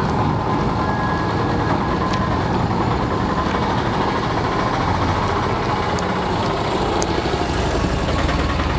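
Steady road traffic noise, vehicle engines running by a roadside.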